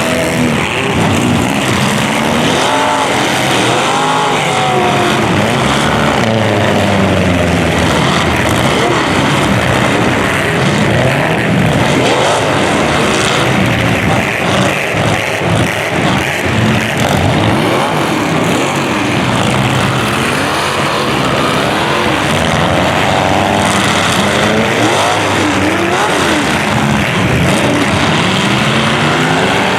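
Several demolition derby car engines revving, their pitches rising and falling and overlapping over a loud, steady din.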